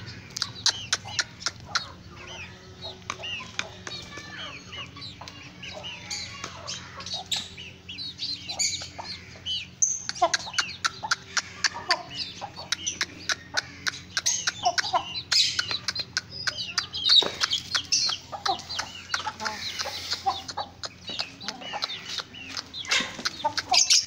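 Aseel chickens clucking and peeping, with many quick, sharp taps of beaks pecking at feed on the concrete.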